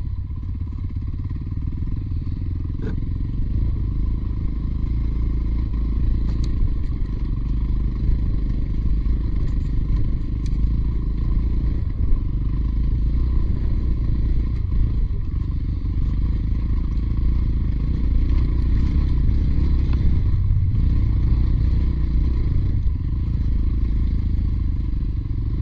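Motorcycle engine running steadily under way on an off-road track, with a strong low rumble and a few short knocks along the way.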